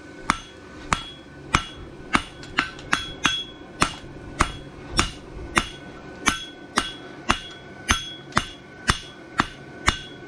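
Farrier's hammer striking the end of a steel horseshoe bar on the anvil's step with half face blows, scarfing it down for welding. The blows come at a steady pace of about two a second, each with a short metallic ring.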